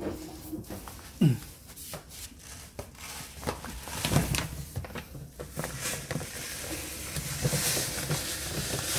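Plastic bag of cat litter rustling and crinkling as litter pellets are poured into the drum of an automatic self-cleaning litter box, with scattered knocks and clicks and a hiss of pellets pouring near the end. A short sharp sound stands out about a second in.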